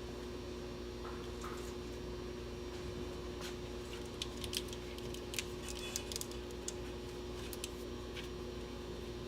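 Scattered sharp clicks and ticks of nylon zip ties being pulled tight by hand, over a steady low hum.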